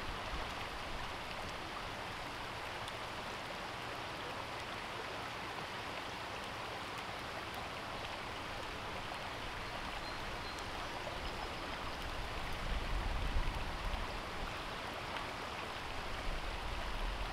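Shallow rocky stream running steadily over stones, with a low rumble swelling briefly past the middle and again near the end.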